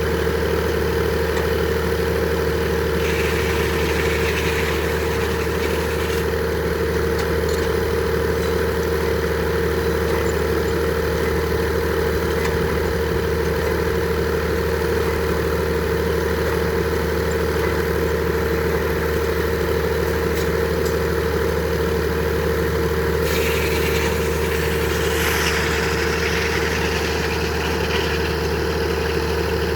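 Engine powering a Frick sawmill, running at a steady speed. A higher hiss comes in twice over the hum, for about three seconds a few seconds in and again for several seconds near the end.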